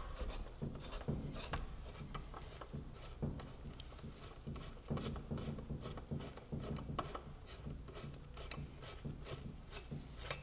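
Hand hex driver turning and snugging a rearset's lower bolt: a run of irregular small clicks and light metal scraping as the tool works the fastener.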